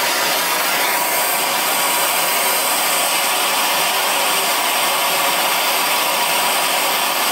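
Handheld MAPP gas blowtorch burning with a loud, steady hiss while it heats a small metal part for brazing.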